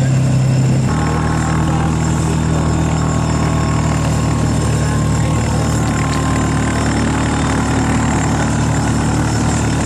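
Engine of the towing vehicle running steadily, heard from on board, its note changing about a second in.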